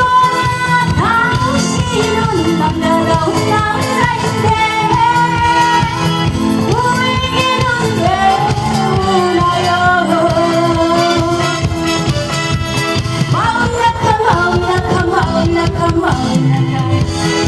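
A male singer singing a song with long held, wavering notes over loud pop backing music with a steady beat.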